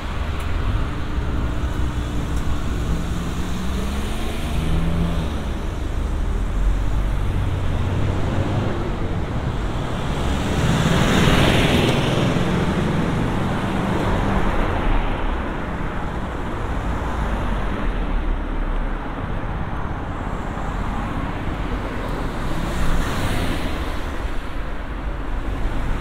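Road traffic on a city street: cars and vans passing close by over a steady low rumble of engines and tyres, one passing vehicle swelling and fading about halfway through and another shortly before the end.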